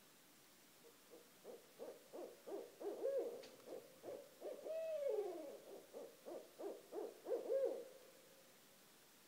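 Barred owls calling: a fast run of hoots starting about a second in, with a long downward-sliding note near the middle, then more quick hoots before they stop near the end.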